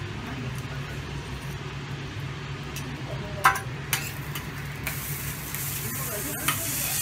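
Metal knife and spatula clinking against a steel teppanyaki griddle, one sharp clink about halfway through and a few lighter ones after, over a steady low hum. Kobe beef sizzles on the hot griddle, the sizzle growing louder in the last couple of seconds.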